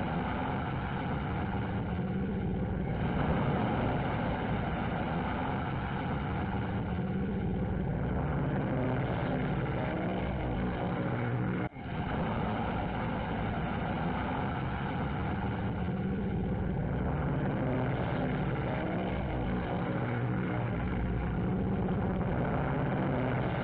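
Propeller-driven aircraft engines running steadily on an aircraft carrier's flight deck, heard on an old film soundtrack that sounds muffled. The sound cuts out for an instant about halfway through.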